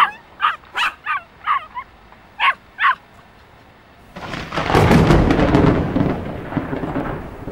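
A run of short, high yelping calls like a small dog's, then about four seconds in a loud, long rumbling noise like thunder, which dies away near the end.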